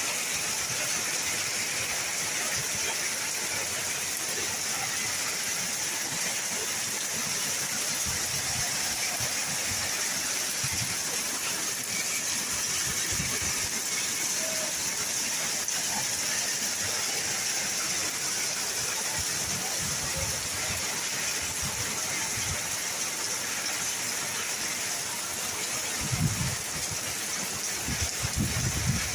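Steady rain falling, a continuous even hiss. A few low thumps come near the end.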